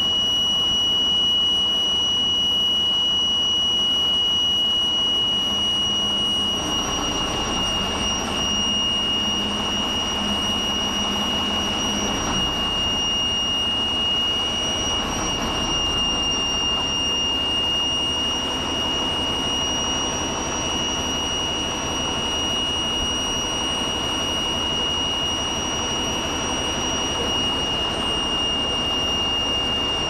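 Caterpillar D8H bulldozer's diesel engine running under load as the machine creeps slowly, with a steady high-pitched whine over the engine.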